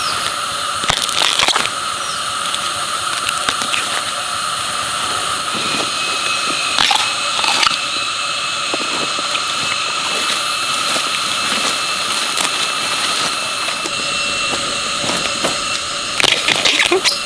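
Steady high-pitched insect chorus, several droning tones held without a break, with a few short knocks or rustles about a second in, around seven seconds in and near the end.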